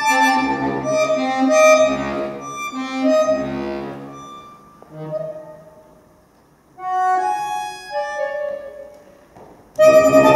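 Solo accordion playing contemporary music: busy clusters of held and quickly changing notes that thin out and fade almost to silence about six seconds in. A few sparse notes follow, then loud dense chords break in near the end.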